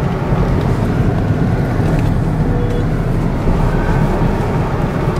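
Steady low road-and-engine rumble inside the cabin of a moving car.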